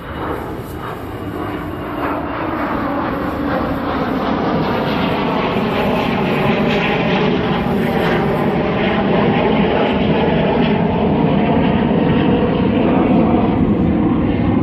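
Airplane engine drone passing low overhead, growing steadily louder.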